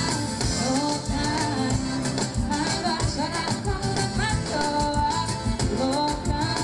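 Live band playing upbeat Latin pop with a steady drum beat, a woman singing the lead melody into a handheld microphone.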